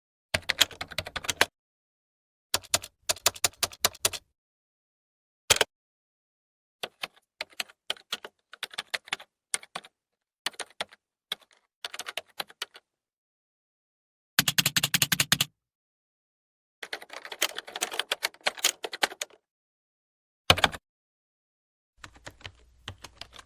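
Typing on a laptop keyboard: bursts of rapid key clicks, a few single keystrokes, broken by short silent gaps.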